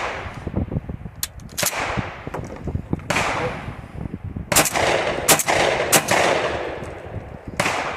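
A 20 gauge Hatfield semi-automatic shotgun fired about six times in quick succession, each shot followed by a long fading echo. The gun is being emptied, firing round after round without a jam.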